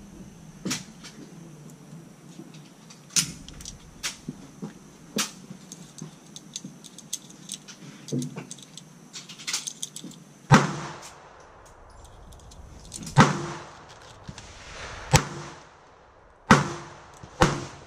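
Semi-automatic pistol shots, about five sharp cracks each with a short echo, coming a second or two apart in the second half. Lighter clicks come earlier, from cartridges being pressed into a pistol magazine.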